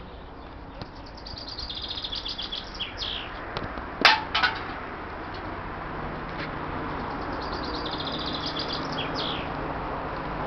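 A songbird sings two trilled phrases, each ending in a quick falling flourish, one in the first few seconds and one past the middle. A sharp metallic clang about four seconds in, with a lighter one just after, is the loudest sound, over a steady background hum.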